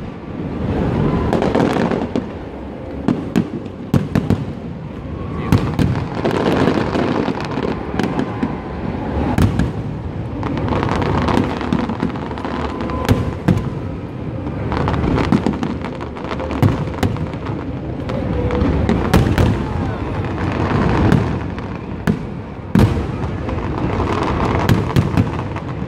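Large aerial fireworks display at close range: a continuous barrage of booming shell bursts with many sharp bangs and crackles layered over a steady rumble.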